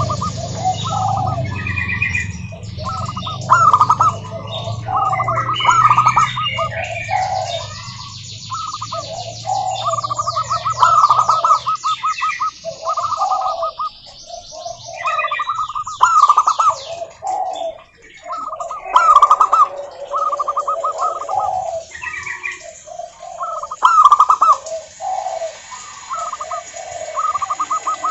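Several zebra doves (perkutut) singing over one another: repeated rolling, trilled coo phrases that answer each other back and forth. Higher-pitched chirping runs between the phrases, and a low hum lies under the first part.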